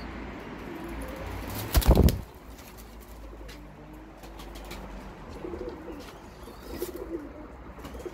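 Domestic pigeons in a loft: a loud, brief burst of wing flapping just before two seconds in, then soft, low cooing calls in the second half.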